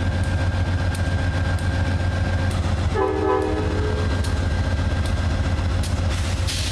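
Amtrak GE P32-8 diesel locomotive idling at a standstill with a steady low drone. A short horn note sounds about three seconds in, and a brief hiss comes near the end.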